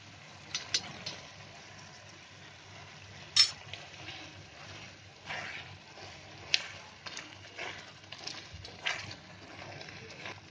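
Wooden spatula stirring and scraping thick tomato pizza sauce in an iron tawa as butter melts into it, over a faint sizzle of the simmering sauce. A few sharp taps of the spatula against the pan stand out, the loudest about three and six and a half seconds in.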